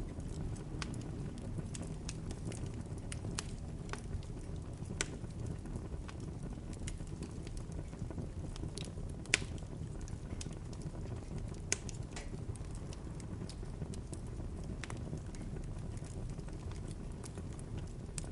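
Bonfire crackling: irregular sharp pops and snaps of burning wood over a steady low rumble of flames. The loudest pop comes about nine seconds in, and another strong one near twelve seconds.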